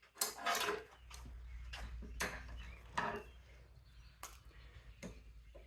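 Plastic electrical plug housings being snapped and broken apart with hand tools and a vise: a string of sharp cracks and clicks, about half a dozen, with a low steady hum underneath from about a second in.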